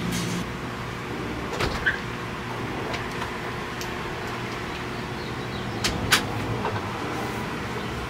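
A glass-paned patio door opening and shutting, with a latch click about two seconds in and a sharper knock about six seconds in as it closes, over a steady background hum.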